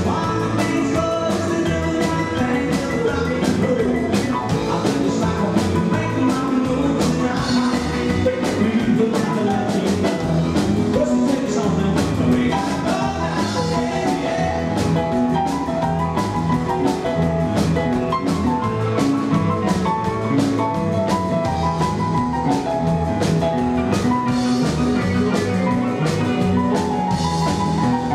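Live rockabilly band playing: a stage keyboard piano over upright double bass and a drum kit keeping a steady beat.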